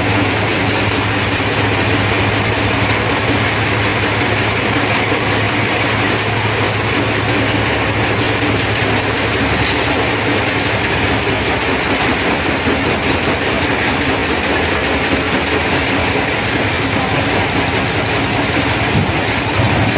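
Tractor's diesel engine running steadily with a fine rapid clatter while it drives the hydraulic lift that tips a sand-laden trailer.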